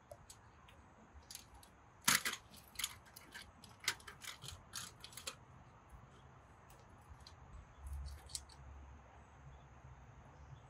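Sharp metal clicks and clacks from a Steadicam docking stand being handled and assembled as its legs are opened and its parts locked into place. There is a quick run of them from about two seconds in to past five seconds, the loudest near the start, and a low dull bump near the end.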